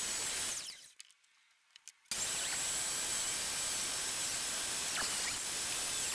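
Table saw cutting a rabbet along the edge of a walnut cabinet door held on edge against the fence, a loud steady saw noise with a high whine. The sound drops away about half a second in, and after a second of near quiet it starts again abruptly and runs steadily to near the end.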